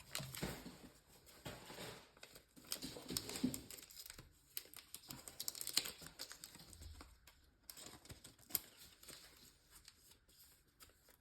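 Faint plastic rustling with small irregular clicks and taps as a trading card is handled and slid into a plastic card sleeve.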